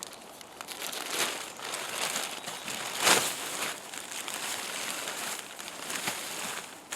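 Waterproof-coated tent fabric crinkling and rustling as it is handled, with a few sharper rustles, the loudest about three seconds in.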